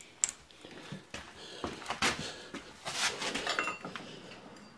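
Scattered light knocks, clicks and rustling: handling noise as the camera is carried.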